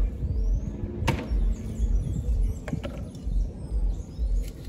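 A knife cutting fish on a wooden board: three sharp knocks of the blade on the wood, irregularly spaced, over a low uneven rumble.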